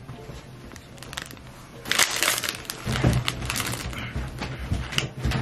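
Thin plastic food wrapping and tray crinkling and crackling as a pack of rice dumplings is torn open and the dumplings are pulled out, starting about two seconds in, with dull knocks from handling.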